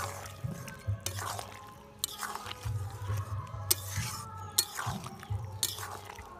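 Metal spatula scraping and knocking against a large metal kadai several times as a thick duck curry is stirred, over background music.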